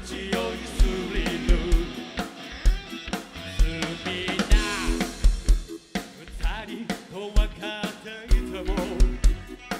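Live rock band playing an instrumental passage of a danceable song: a drum kit with kick and snare keeping a steady beat under electric guitars.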